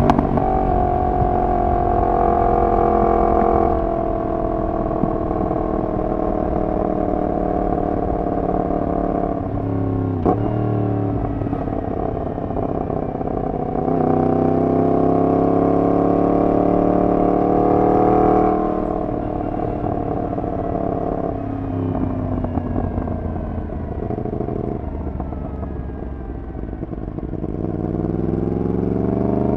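Yamaha MT-10's crossplane inline-four through a decat full exhaust system, under way: the engine note holds fairly steady, climbs under throttle about halfway through, drops off and winds down as the bike slows, then climbs again near the end. A single sharp click about ten seconds in.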